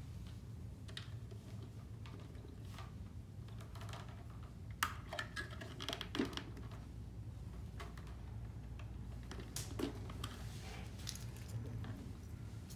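Light plastic clicks and handling sounds as flexible plastic water tubes are pushed into the push-fit fittings of a reverse-osmosis filter's valve manifold, with a few sharper knocks about five, six and ten seconds in.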